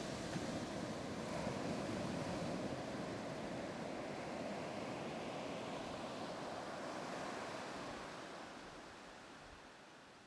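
Surf washing up a sandy beach: a steady rush of breaking waves that fades away over the last few seconds.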